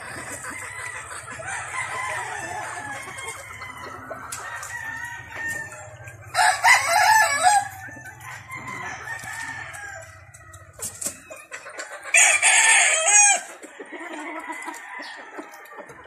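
Gamefowl roosters crowing twice, loudly, about six and twelve seconds in, each crow lasting over a second, with hens and roosters clucking softly in the pens in between.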